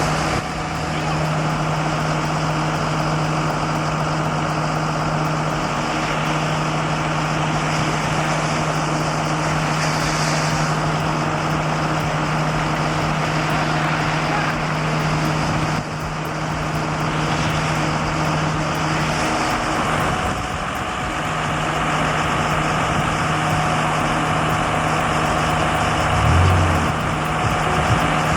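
Heavy machinery engine running steadily with a constant low hum, its sound changing abruptly twice partway through, with a brief low thump near the end.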